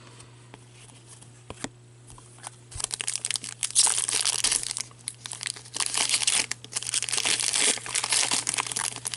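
Upper Deck hockey card pack wrappers being torn open and crinkled: quiet handling with a few light clicks at first, then about three seconds in a dense crackle of crumpling wrapper that goes on, with short pauses, to the end.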